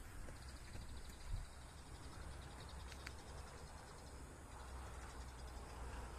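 Faint outdoor ambience: insects chirping in fast, evenly spaced high pulses, stopping about three and a half seconds in and starting again near the end, over a steady low rumble. A single sharp click comes about three seconds in.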